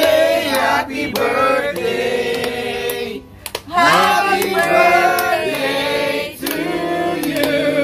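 A group of people singing together in phrases of held notes, with some hand clapping.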